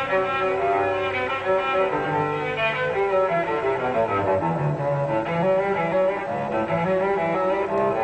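Bowed string music: low, held cello and double-bass notes under higher string lines, moving slowly from note to note.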